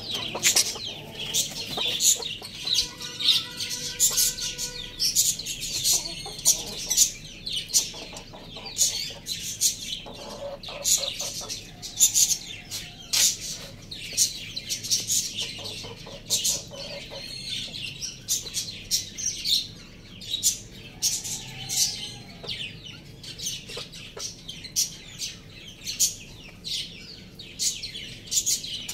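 Chickens clucking, over a near-continuous twitter of many short, high-pitched chirps.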